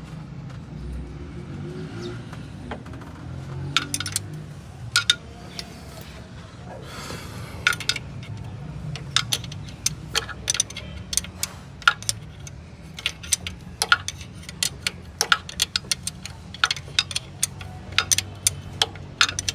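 Metal hand tools clinking and tapping as spanners are handled on engine parts during a tappet (valve clearance) adjustment: sharp, irregular metallic clicks begin about four seconds in and come thicker in the second half.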